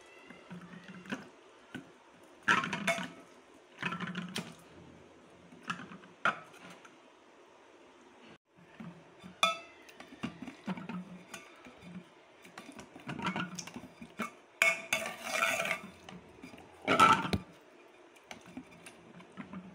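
Metal potato masher clanking and scraping against the bottom and sides of a metal pot as cooked rice and vegetables are mashed, in irregular strikes a second or two apart, thicker and louder for a few seconds after the middle.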